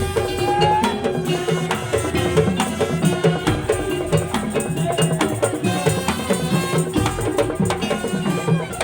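Madurese tong-tong ensemble playing: wooden slit drums and drums beating a fast, busy interlocking rhythm, with a pitched melody line and a held tone over the percussion.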